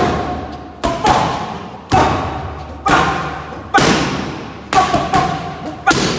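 Kicks and punches landing on Thai pads: a sharp smack about once a second, eight in all, each echoing off the bare room.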